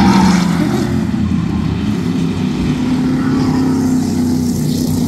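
V8 stock cars racing on an oval track, several engines running at speed together. Loudest in the first second, then easing off a little as the cars move on.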